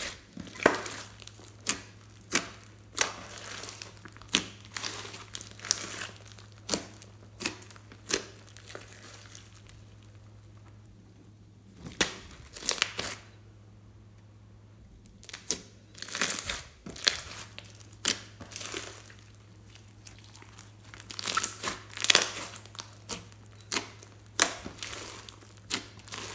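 Green slime mixed with foam beads (floam) being squeezed, kneaded and stretched by hand, giving irregular bursts of crunching and squishing, with a lull of a few seconds near the middle. A faint steady low hum runs underneath.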